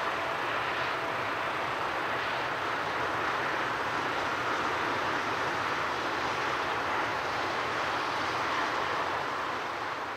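Distant jet engine noise of a Boeing 777 rolling out along the runway after landing: a steady, even rushing sound.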